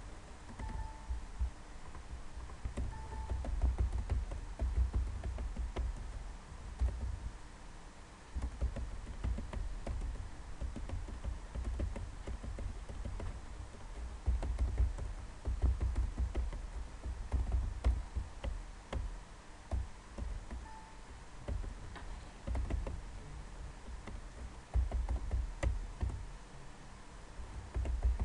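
Typing on a computer keyboard: irregular runs of keystrokes with short pauses between them, each key landing with a dull thud.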